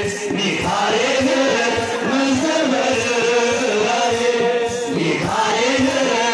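A large group of men chanting together in a slow melody that bends and wavers: Ethiopian Orthodox liturgical chant.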